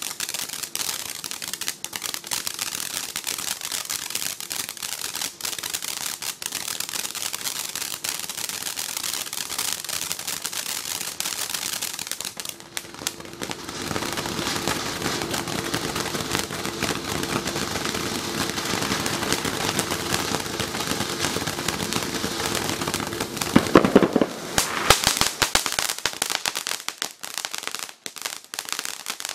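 Windmill Brand 'Rock Your Heart' firework fountain spraying sparks: a continuous hiss with dense crackling, growing louder about halfway through, with a loud burst of crackles near the end.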